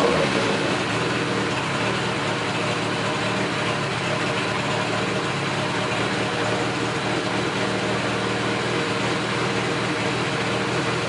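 Suzuki GS850's air-cooled inline-four engine idling steadily just after starting, its revs settling down in the first moment.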